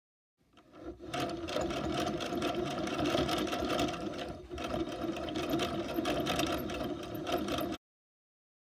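Hand-cranked yarn ball winder whirring steadily as its handle is turned and yarn winds onto the spindle. The whir rises in about half a second in, dips briefly around the middle, and cuts off suddenly near the end.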